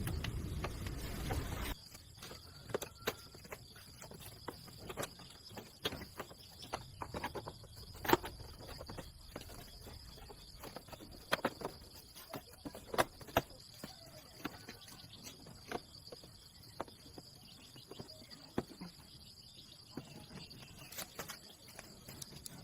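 A steady, faint high insect trill runs under many scattered sharp clicks and knocks; the loudest knock comes about eight seconds in. A louder low rumbling noise cuts off abruptly within the first two seconds.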